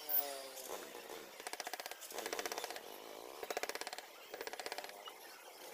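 Hand carving chisel cutting into a wood panel in short strokes, each stroke a quick rattling chatter of rapid clicks, with brief pauses between strokes.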